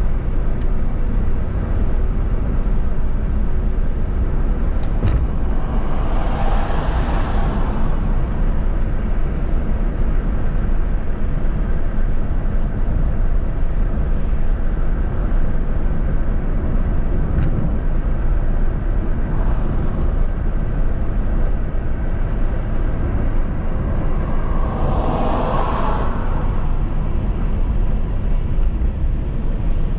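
Steady rumble of tyres and wind from a vehicle driving on a highway, with two passing vehicles swelling up and fading, about six seconds in and again about twenty-four seconds in.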